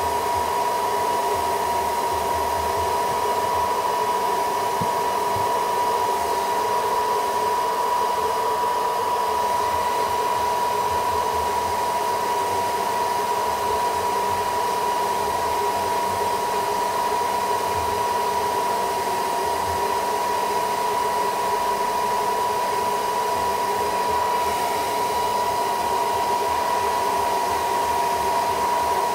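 Hot-air blower running steadily with a high, constant whine, heating the back glass of a Sony Xperia 5 smartphone to soften the adhesive before it is pried off.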